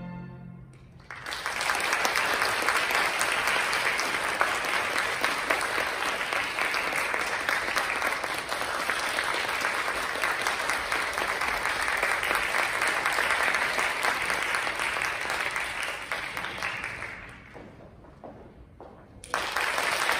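Audience applauding in a concert hall as a string ensemble piece ends. The last held note fades out just before the clapping breaks out about a second in. The clapping dies down near the end, then starts up again suddenly.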